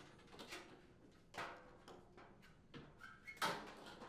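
A washing machine's sheet-metal rear panel being lifted off and handled: a few faint knocks and rattles, the loudest about three and a half seconds in.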